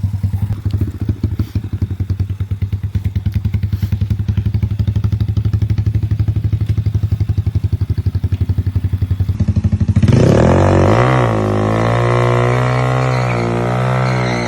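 A vehicle engine running with a rapid, even pulsing exhaust note. About ten seconds in it gets louder and revs up and down.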